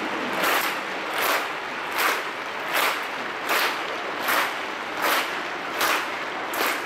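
Stadium crowd clapping in unison, a steady beat of a little over one clap a second over a background hum of crowd noise.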